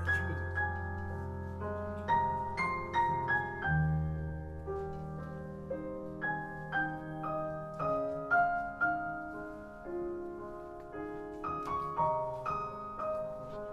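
Solo piano music, with notes and chords struck every half second or so over held bass notes, played back through MBL omnidirectional loudspeakers in a listening demo.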